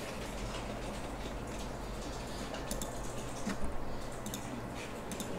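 A handful of short clicks from a computer keyboard and mouse being worked, mostly in the second half, over a steady low hum of room and recording noise.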